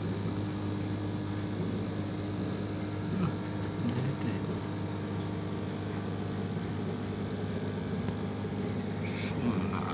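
Aquarium pump humming steadily, a low electrical drone with a few faint, brief higher sounds over it about three to four seconds in and near the end.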